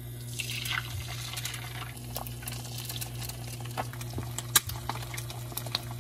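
Eggs frying in oil in a nonstick frying pan, sizzling with many sharp crackles and pops over a steady low hum.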